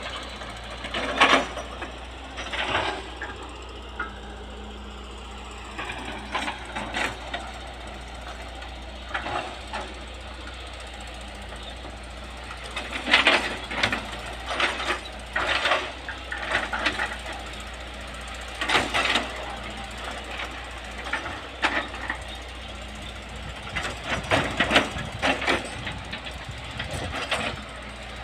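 Hitachi excavator engine running steadily, with irregular loud crackling and snapping bursts as tall brush and undergrowth are broken down.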